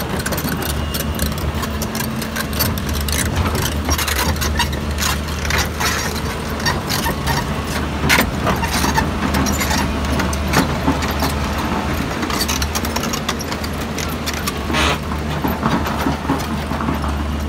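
Hyundai 230LM crawler excavator's diesel engine running steadily as the machine travels on its steel tracks, with irregular clanking and rattling from the track links throughout.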